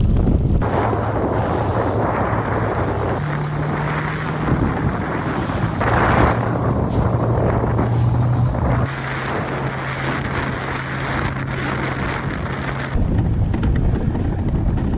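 Wind buffeting the microphone and water rushing past a sailing Moth foiling dinghy, changing abruptly several times, with a steady low hum that shifts pitch at each change.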